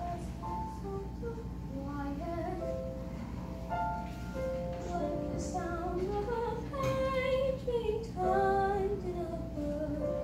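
A young girl singing a slow solo song, holding long notes and sliding between pitches.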